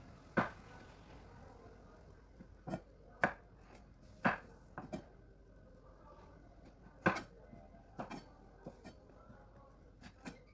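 Knife chopping on a cutting board: about a dozen sharp, irregularly spaced knocks.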